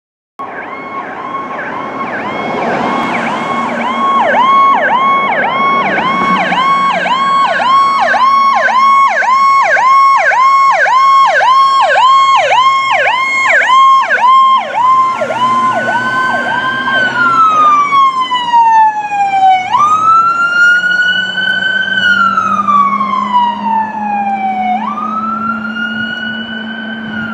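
Fire engine electronic sirens on an emergency response. A fast yelp of about three sweeps a second runs until about two-thirds of the way through, then the siren switches to a slow wail that jumps up sharply and falls away over a few seconds, twice. A low steady drone sits underneath near the end.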